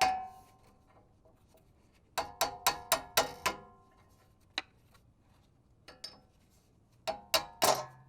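A hammer tapping a flathead screwdriver wedged under the dust cap of a 1992 Eagle Talon's rear wheel hub, prying the cap off bit by bit. Sharp metallic taps with a short ring come in quick runs of several, with pauses between.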